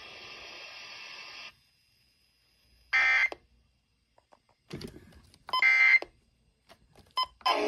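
Weather radio EAS/SAME digital data bursts: two short, harsh, buzzy electronic screeches, the first about three seconds in and a longer one about two and a half seconds later. They are end-of-message codes closing the warning broadcast. Before them a steady radio hiss cuts off, and scattered clicks come near the end.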